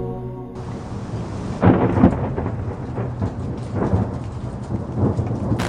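Wind buffeting the microphone: an irregular low rumble with gusts swelling about a second and a half in and again near four seconds.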